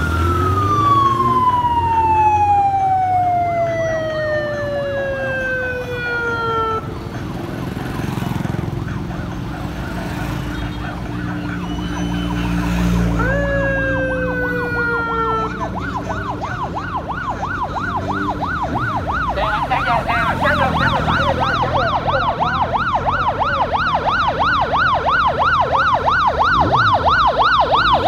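Electronic siren on a race escort vehicle: a long wail that rises briefly and then falls slowly in pitch, then a second shorter wail, then from about halfway a fast warbling yelp that keeps going. Motorbike and car engines run underneath.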